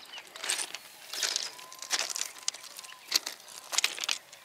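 Footsteps in sandals crunching on railway ballast stones, several uneven steps.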